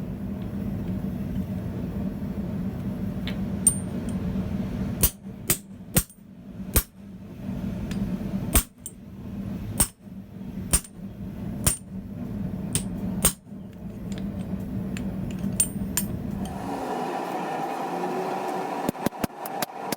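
Hammer striking 3/8 inch square steel bar in a tenon jig to round its centre: about a dozen sharp, irregularly spaced blows over a steady low hum. Near the end the hum changes and a quick, even run of light taps begins.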